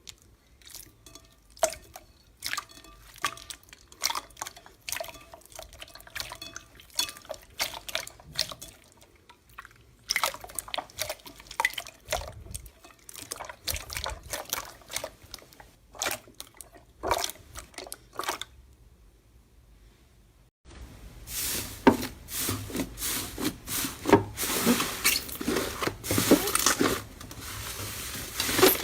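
Close-up wet clicking, tapping and dripping sounds from something liquid or sticky being handled, in separate short takes; the last stretch is louder and denser.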